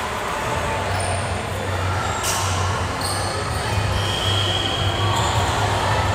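Sports hall ambience between volleyball rallies: a steady low hum under indistinct background voices, with a sharp knock a little over two seconds in and a brief high squeak about four seconds in.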